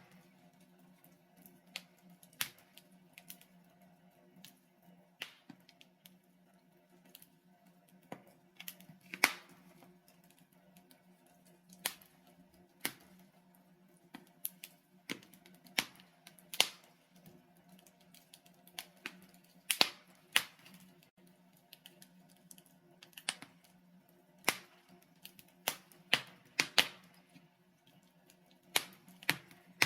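Logs burning in a fireplace, crackling with irregular sharp pops and snaps about once a second over a faint steady low hum.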